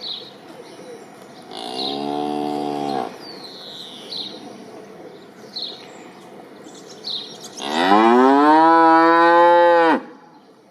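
Cow mooing twice: a short moo about a second and a half in, then a longer, louder moo near the end that rises in pitch and holds. Small birds chirp briefly between the calls.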